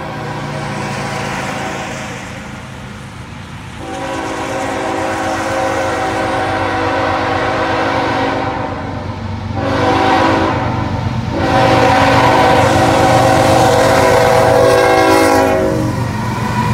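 A diesel-hauled loaded coal train approaches a grade crossing. The lead locomotive's air horn blows for the crossing in three blasts starting about four seconds in: a long one, a shorter one, then another long one, each louder as the train nears. Under the horn the locomotive engines run low and steady, and near the end the horn stops as the locomotives pass close by.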